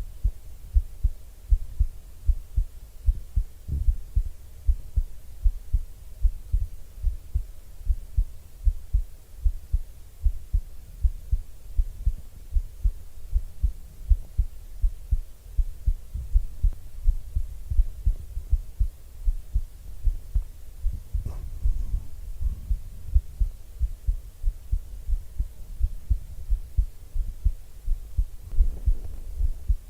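A person's heartbeat heard up close, a steady, even rhythm of low thumps. Faint brushing noises come in briefly about two-thirds of the way in and again near the end.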